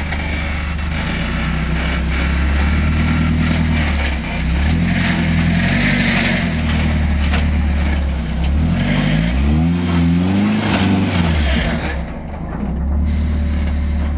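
Off-road truck engine running and revving up and down several times, with a clear rise and fall in pitch about two-thirds of the way through.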